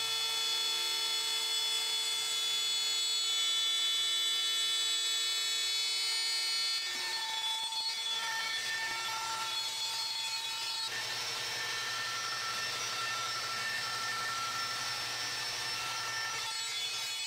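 DeWalt 611 trim router running on a Lowrider II CNC machine as it cuts: a steady whine made of many high tones. About seven seconds in, shorter pitched tones start coming and going, and the sound changes again around eleven seconds.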